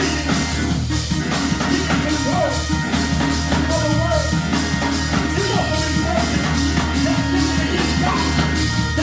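Live gospel praise music with a full drum kit and bass, and a voice or lead instrument coming in over it in short phrases.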